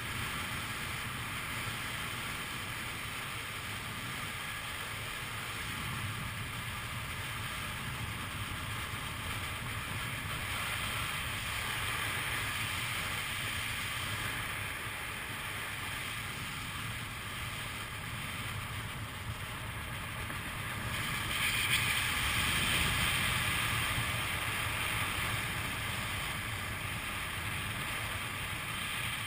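Wind rushing over the camera microphone as a parachutist descends under an open canopy, a steady rush that grows louder for a few seconds about twenty seconds in.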